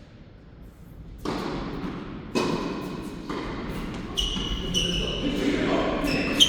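Indoor tennis play: two sharp ball strikes about a second apart, each ringing on in the hall, followed by short high squeaks of court shoes.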